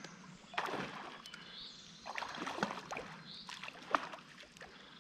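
A large hooked trout thrashing at the water surface on the line, making several irregular splashes, the loudest about four seconds in.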